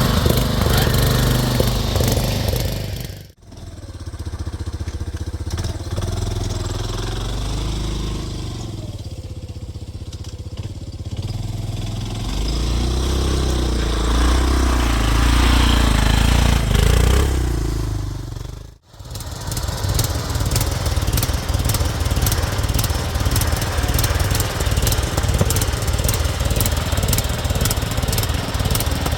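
Small garden-tractor engine running while driving a trail, in three cut-together clips. In the middle clip the engine pitch rises and falls with the throttle over a heavy low rumble. In the last clip it runs steadily with an even, rapid firing beat.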